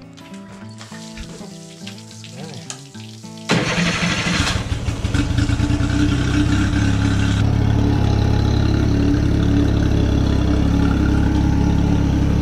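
Acoustic guitar music for the first few seconds. Then, about three and a half seconds in, the Honda BF30's three-cylinder four-stroke outboard engine starts abruptly and settles into a steady idle. It is running on a garden-hose flush attachment, with cooling water splashing from the leg, a sign the newly fitted impeller is pumping.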